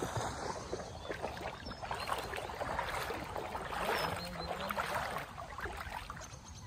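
Footsteps wading through shin-deep floodwater on a flooded road: repeated sloshing and splashing.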